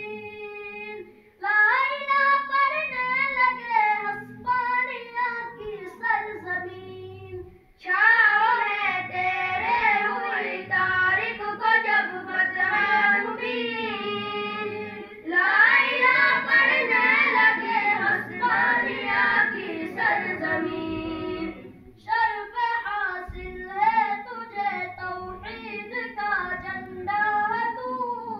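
A young voice chanting a devotional recitation in a melodic, sung style through a microphone. It comes in phrases with short breaks, louder and fuller from about eight seconds in until about twenty-one seconds.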